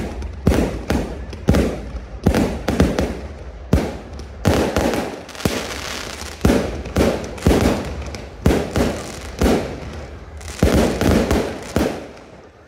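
Fireworks display: aerial shells bursting in quick succession, sharp bangs about one to two a second with crackling between them, easing off near the end.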